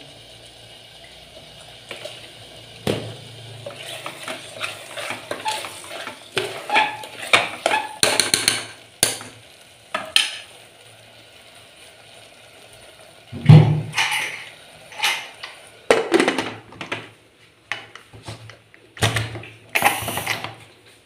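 A plastic spatula stirring thick chicken curry in an aluminium pressure cooker, scraping and tapping against the pot over a faint sizzle. From about halfway through come a loud metal clank and further knocks and clatters as the pressure cooker's lid is fitted and its weight set on the vent.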